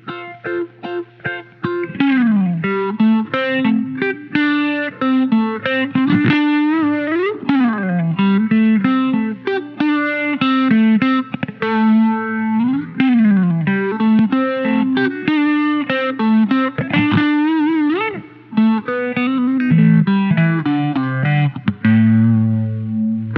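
Electric guitar played through an Electro-Harmonix Bad Stone phase shifter pedal, the phaser sweep moving slowly up and down through the tone. Short, separated notes for the first two seconds, then continuous single-note phrases.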